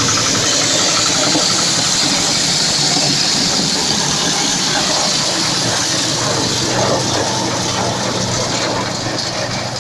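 Diesel-engine corn sheller running steadily: a low engine drone under a loud, continuous hissing rattle from the threshing drum.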